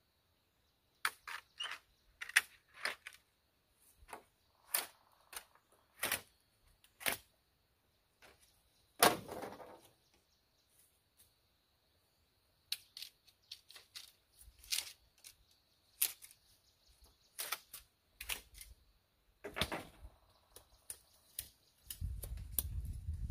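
Bamboo being split and worked with a knife: sharp, irregular cracks and snaps, with a longer splitting crack about nine seconds in. A low rumble sets in near the end.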